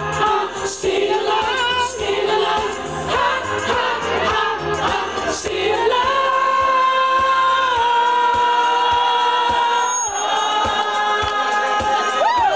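Singing by several voices over music with a steady beat, with long held notes from about six seconds in.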